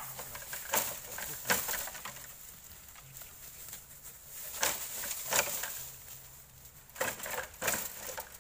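Dry bamboo leaves and twigs crackling and snapping underfoot, in scattered short bursts as something moves through the leaf litter.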